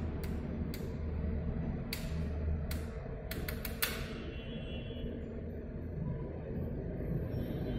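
Control knobs of a cathode-ray oscilloscope being turned, with about eight sharp clicks from its detented selector switches in the first four seconds, several in a quick run near four seconds. A steady low hum runs underneath.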